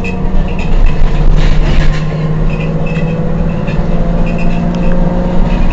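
Heuliez GX 127 city bus's diesel engine idling steadily, with a brief hiss about a second and a half in.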